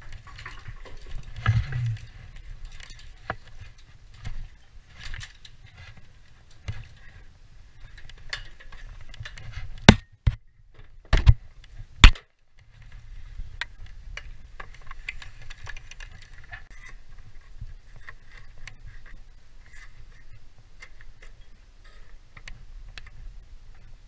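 Scattered knocks, clicks and rattles of a person climbing an aluminium ladder through a roof hatch with gear. Four sharp, loud knocks come between about ten and twelve seconds in.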